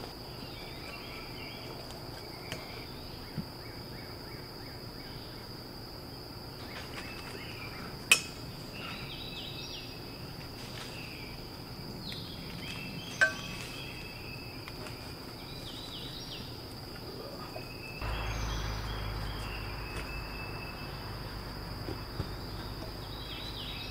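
Insects droning steadily at a high pitch, with a few sharp metal clinks from the steel ladder tree stand being worked on and taken down; a low rumble comes in near the end.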